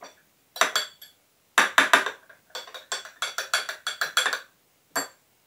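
Metal spoon stirring instant coffee and hot water in a small drinking glass, clinking against the glass in irregular runs of quick taps, each with a short ring, and a last single clink near the end.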